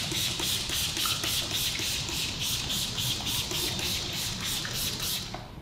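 Trigger spray bottle spritzing rapidly, about four sprays a second, each a short hiss of mist; the spraying stops abruptly about five seconds in.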